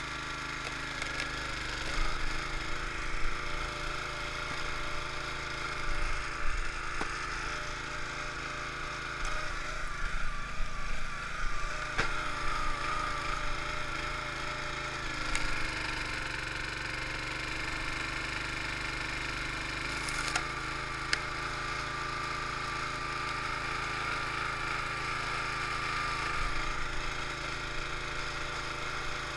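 Small gasoline engine of a 25-ton hydraulic log splitter running steadily, its note wavering as the hydraulic pump takes load. Oak splitting under the wedge gives cracks and crunches in several bursts, most of them in the first half.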